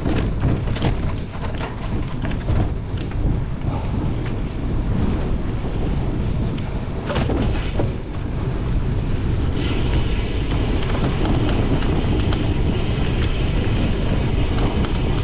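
Wind rushing over the microphone of a cyclocross bike being raced, with tyre noise and scattered clicks and rattles from the bike over rough ground. About ten seconds in, the hiss turns brighter and stays that way.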